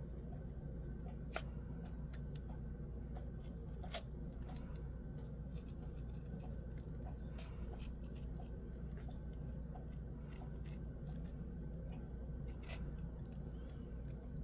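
Scissors cutting through product packaging: a run of small scattered snips and clicks, with a few sharper snips about a second and a half in, about four seconds in and near the end.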